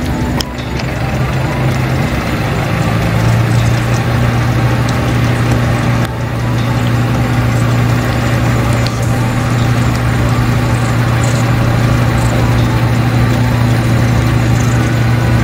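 A vehicle engine idling steadily with a low, even hum that grows a little louder about three seconds in.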